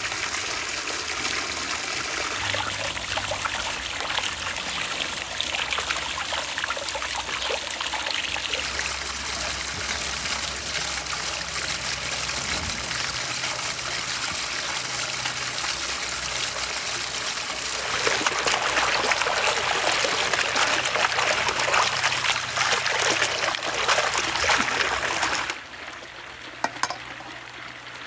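Water from a garden stone fountain's jet splashing and trickling into its basin and over the rocks. It grows louder about two-thirds of the way in, then drops away sharply near the end.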